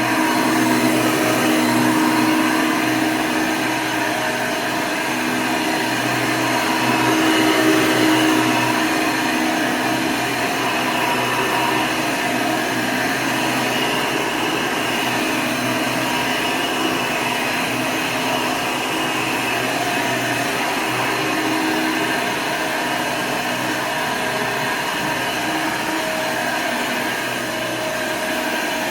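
Hoover Legacy II upright vacuum running steadily: a continuous motor and fan whir with a steady hum, swelling slightly in loudness now and then. Its motor is fitted with a new-old-stock 20-bladed fan.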